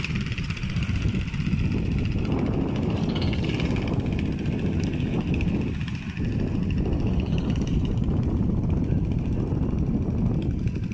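Long-tail boat engine running steadily, driving its long-shaft propeller.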